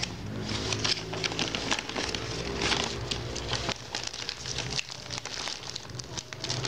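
Shiny plastic gift wrapping crinkling and rustling in irregular bursts as hands pull and tear it open around a ribbon bow.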